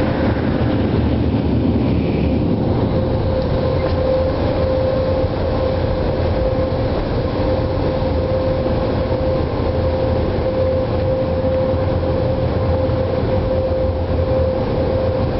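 Automatic car wash dryer blowers blowing air over the truck, heard from inside the cab: a steady rush of air with a constant mid-pitched hum running through it.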